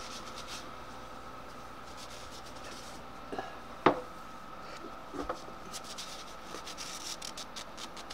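Paper towel rubbing and rustling against the rusty metal demister of a Harvest Right freeze dryer's oil vacuum pump as it is wiped clean. There is one sharp clink about four seconds in and a few lighter knocks, over a faint steady hum.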